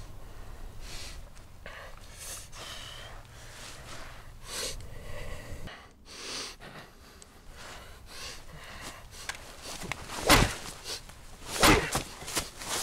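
A man's heavy breathing and gasps over the rustle of dry leaves on a forest floor as two men scuffle and one moves through the leaves, with several louder crunches about ten to twelve seconds in.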